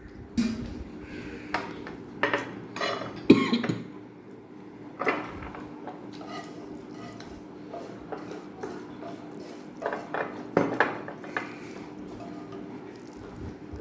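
Kitchen pots and metal utensils clinking and clattering in irregular knocks, over a steady low hum.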